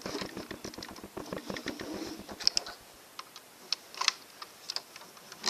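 Small plastic clicks and rattles from a LEGO-brick candy machine being handled: a quick run of clicks for the first two and a half seconds or so, then scattered single clicks.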